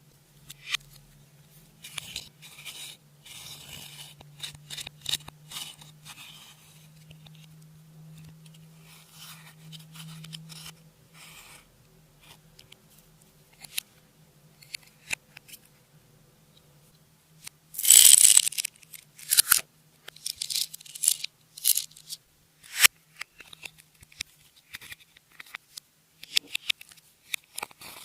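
Close-up handling of slime and makeup: irregular small clicks, crackles and scrapes, with a faint steady low hum in the first half. A loud harsh scrape or rustle comes about 18 seconds in, followed by a few sharp snaps.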